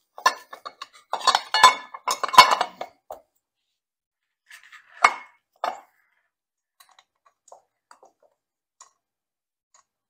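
Clinking and clattering of a motorcycle's front sprocket cover and its bolts being handled and fitted against the engine case, busiest over the first three seconds. Two sharper knocks come about five seconds in, then a few faint ticks.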